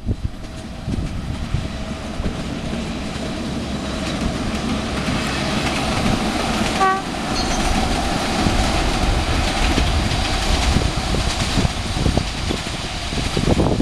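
Narrow-gauge passenger train going by: the diesel locomotive running and the coaches rolling along the track, growing slightly louder toward the middle. A brief high note sounds about seven seconds in.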